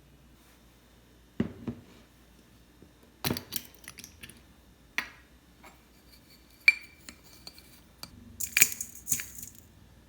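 Kitchenware knocking and clinking: a few separate knocks, then one ringing clink of glass or ceramic about two-thirds through, and a short burst of scraping and clattering near the end.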